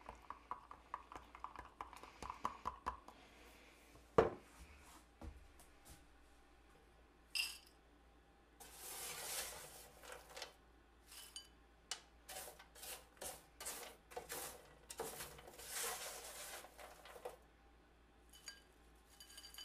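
A smoothie being stirred in a glass mason jar, the stirrer ticking quickly against the glass for the first few seconds, then a sharp clink. Then a spatula scrapes baked granola off a metal sheet pan into a bowl in a series of scraping, rustling strokes.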